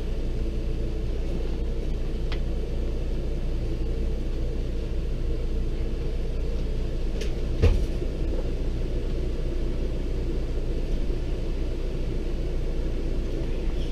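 Steady low machine rumble and hum, with a light click about two seconds in and a single knock about halfway through.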